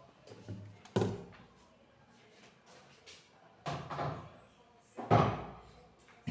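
Sharp knocks and clunks of containers or fittings being handled and set down: one about a second in, a pair near four seconds, and a loud one just after five seconds.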